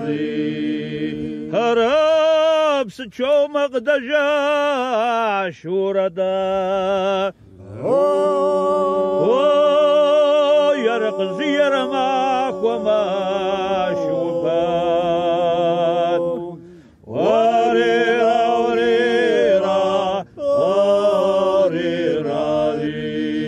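Men singing a Kabardian (Circassian) folk song unaccompanied: a lead voice with wide vibrato over a low held drone, in long phrases broken by short breaths.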